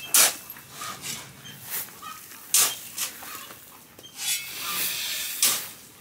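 Shovel scooping and tossing pea gravel: a few sharp gritty scrapes, with a longer stretch of gravel noise about four to five seconds in.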